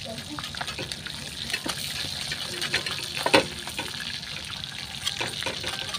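Fish frying in hot oil in an aluminium wok, a steady sizzle full of small popping crackles, while a metal spatula scrapes and turns the fish in the pan. One sharp knock stands out about three seconds in.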